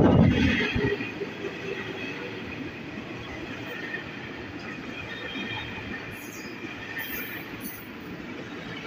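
A 12-car JR 205 series electric commuter train rolling along the station platform. It is loudest as the front passes at the very start, then settles within about a second into a steady rumble of cars going by, with a faint high wheel squeal over it.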